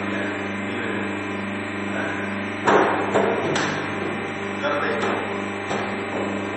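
Notebook edge-squaring machine running with a steady hum, with a few sharp knocks and short clatters as notebooks are fed through its roller slot; the loudest comes a little under three seconds in.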